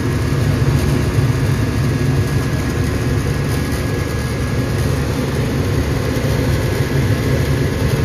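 Propane-fired gas furnace running with its row of in-shot burners lit, making a loud, steady low rumble.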